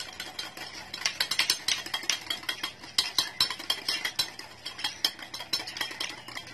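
Hand wire whisk beating against the inside of a stainless steel bowl in rapid, even strokes of sharp metallic clicks, several a second, as instant coffee, sugar and hot water are whipped toward a creamy dalgona foam.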